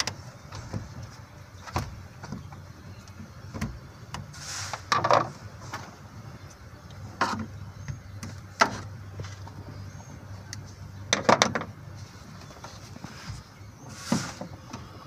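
Scattered knocks and clicks of tools and parts being handled during car repair work, a dozen or so spread irregularly, over a faint steady low hum.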